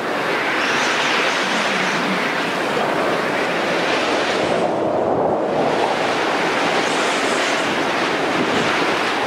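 Ocean waves breaking on a shore: a rushing surf noise that eases off briefly about halfway through and then swells again.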